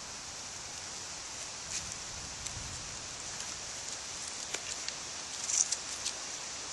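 Scattered light clicks and knocks of a wooden bow drill set being fitted together, the spindle seated in the fireboard notch under the handhold, with one louder knock about five and a half seconds in, over a steady hiss.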